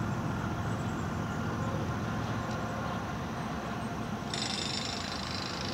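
Diesel freight locomotive's engine giving a steady low rumble as it approaches slowly. A steady hiss starts suddenly about four seconds in.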